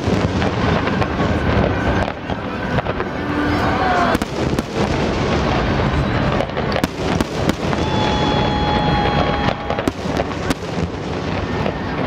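Fireworks display: a dense run of shell bursts and crackling, with sharper bangs about four, seven and ten seconds in, and a held whistling tone between about eight and ten seconds.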